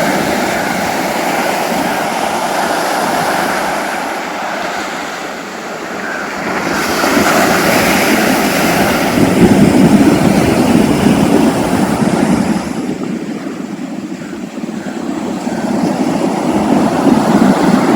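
Sea surf washing onto the beach, in swells that rise and fall, louder about halfway through and again near the end, with wind on the microphone.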